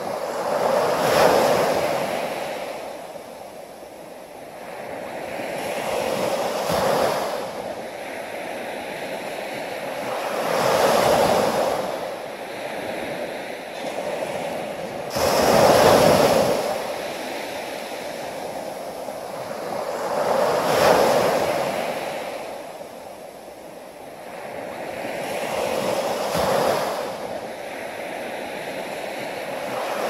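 Small waves breaking on a sandy beach and washing up the shore, one swell about every five seconds, with a steady hiss of surf between them; one wave about halfway through breaks more suddenly than the rest.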